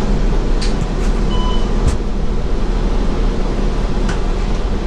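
City bus interior while riding: a steady low rumble of the drivetrain and road noise, with a few short rattles and a brief beep about a second and a half in.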